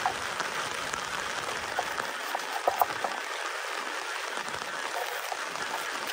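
Steady heavy rain drumming on the tent, heard from inside, with a few short sharp knocks two to three seconds in.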